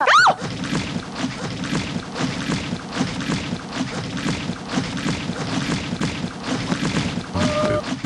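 A torrent of thick liquid chocolate pouring down in a continuous heavy, gloopy gush, after a short rising-and-falling tone at the very start. About half a second before the end, a woman's high held scream begins over the pour.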